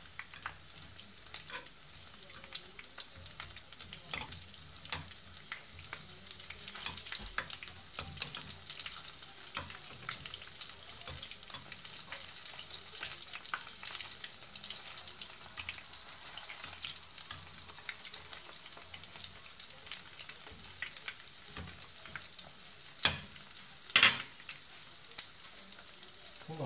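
Battered gimmari (seaweed-wrapped glass-noodle rolls) sizzling as they shallow-fry in oil in a pan, a steady crackling hiss, with light clicks of metal tongs turning them. Two sharp knocks about a second apart near the end are the loudest sounds.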